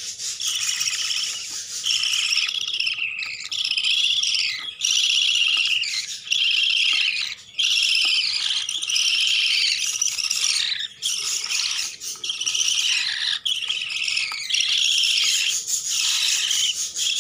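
Budgerigar chicks calling almost without pause: a stream of raspy, high chirring calls, one after another, many dropping in pitch.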